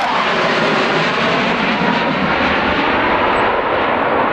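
Jet aircraft engine noise, loud and steady, from a military jet flying past.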